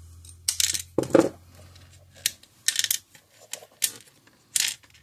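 Metal crimping pliers and small parts clicking and clacking on a wooden workbench while spade connectors are crimped onto wires: a run of sharp metallic clicks, the heaviest clack about a second in.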